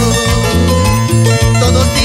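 Instrumental break of a Latin American band song with no singing: a bass line and drums carry the beat under a plucked-string melody.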